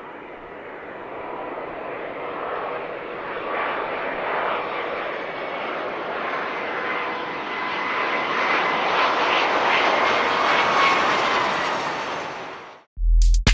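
Jet aircraft engines running with a rushing roar and a steady whine, growing louder over about ten seconds and then cut off abruptly near the end, where electronic music with a drum-machine beat starts.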